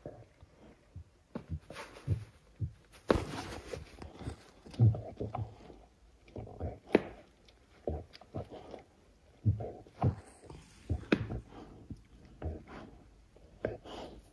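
Dog in labour moving about on the bedding of a whelping box: irregular rustling and soft thumps, some louder knocks scattered through.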